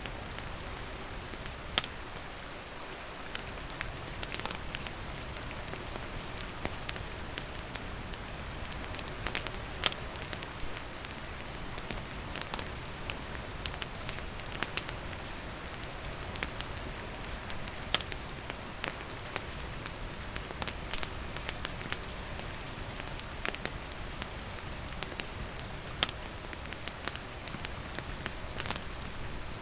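Steady rain falling and pattering on surfaces, mixed with a wood fire crackling, its sharp pops and snaps scattered irregularly throughout.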